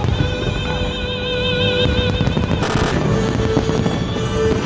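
Fireworks going off in a dense barrage of bangs and rumbling, with a short, sharp crackle about two and a half seconds in. Music plays over the display, with long held notes that waver in vibrato.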